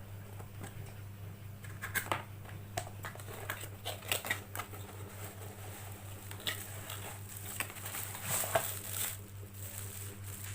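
A rifle scope's packaging being opened and handled by hand: scattered clicks, taps and rustling, busiest around two, four and eight seconds in, over a steady low hum.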